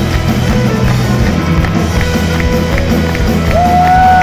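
A Celtic punk band playing live through a loud PA: fiddle over electric guitars, bass and a steady drum beat. Near the end a high note slides up and then down.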